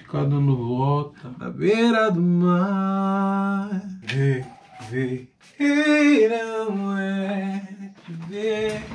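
A man's voice singing without words, a few long held notes broken by short pauses.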